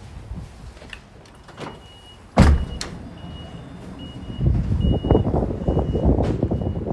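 Toyota Hiace power sliding door in operation, its warning buzzer giving a run of short, evenly spaced high beeps as the door slides closed. There is a sharp thump about two and a half seconds in. The door motor and rollers run on the track with a rising rumble in the last few seconds.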